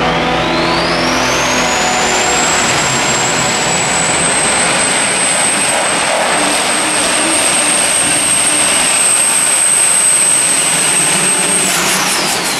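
Super stock diesel Chevrolet pickup at full power pulling a weight-transfer sled, the engine a loud continuous roar under a high turbocharger whistle. The whistle climbs steeply over the first two seconds, holds high and steady through the pull, and drops away near the end.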